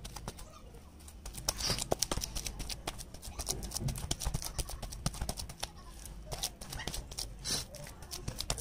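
Fingers squeezing and mashing boiled potato with sliced onion on a plate, giving a quick, irregular run of soft wet clicks and squishes that picks up about a second and a half in.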